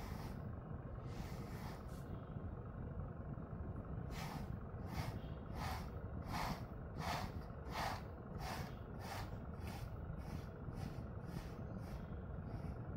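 Pet brush stroking through a dog's thick coat: short swishes repeating about once or twice a second, coming faster toward the end, after a pause of about two seconds near the start. A steady low rumble runs underneath.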